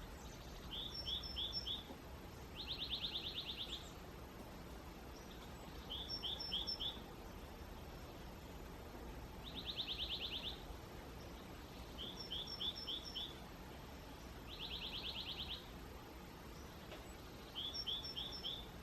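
Songbird singing: a quick run of four slurred chirps alternates with a buzzy trill about a second long, each phrase coming back every few seconds, over steady low background noise.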